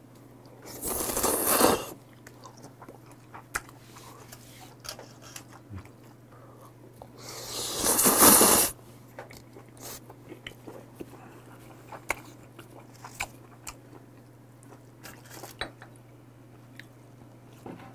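A man slurping stir-fried udon noodles in two long, loud slurps, about a second in and again around eight seconds in. Between and after them come soft chewing and mouth clicks.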